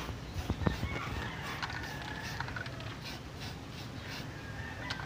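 Rooster crowing: one long call about a second in and another starting near the end, with a few footsteps on dry ground in the first second.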